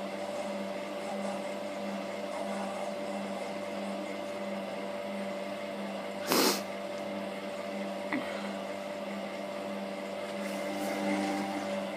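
Candy GODF800 front-loading washing machine running with its door open, its motor and drum giving a steady hum with a steady tone. There is a brief loud noisy burst about six seconds in and a small click about two seconds later.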